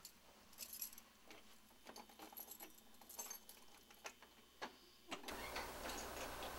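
Faint scattered light clicks and clinks, then a steady hiss of room noise comes up suddenly about five seconds in.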